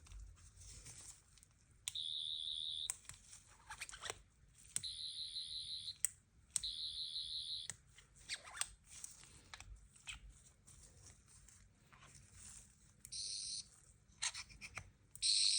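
Sonic screwdriver replicas' electronic sound effect: a high, warbling buzz played in three bursts of about a second each, with clicks of the button between, then two shorter bursts near the end, the last one clearly louder.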